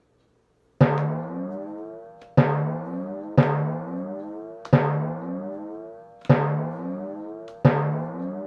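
A pitched drum sound effect, like a timpani, struck six times at uneven intervals. Each hit rings out, with its pitch bending as it fades.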